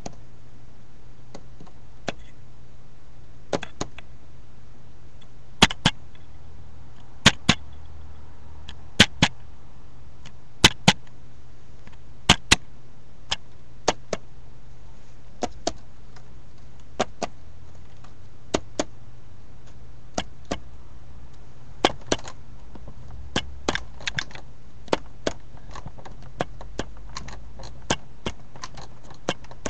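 Sharp clicks, mostly in pairs, repeating every second or two and loudest in the first half, over a steady low hum.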